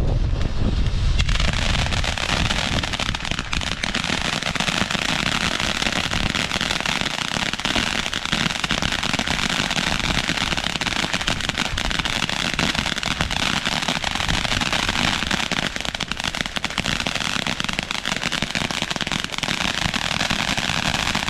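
Fireworks going off in a dense, continuous run of rapid crackling pops that starts about a second in and keeps up at an even level.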